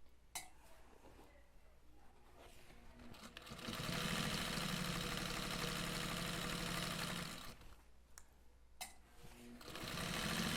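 Sewing machine stitching a zipper seam into a bag. It runs steadily for about four seconds from around the middle, stops, and starts again near the end, with a few clicks in the pauses.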